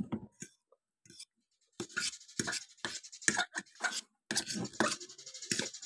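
Metal fork scraping and clinking against a ceramic plate while twirling spaghetti, a quick run of strokes from about two seconds in, with chewing at the start.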